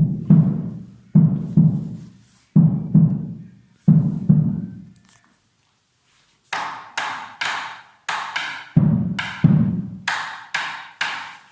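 Drum break in a song: pairs of deep drum strokes about once a second, a short silence, then a quicker pattern of brighter strokes mixed with deep ones.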